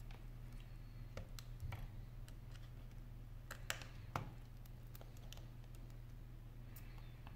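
Small scattered clicks and taps of fingers handling an iPhone 5's parts as a replacement battery is laid into the housing and pressed down by its connector. Two sharper clicks come about halfway through.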